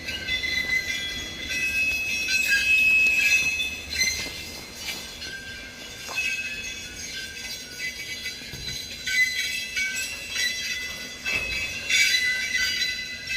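ChME3T diesel shunting locomotive squealing as it moves: several high-pitched squeals that waver, overlap and come and go over a low rumble. They are loudest about two to three seconds in and again near the end.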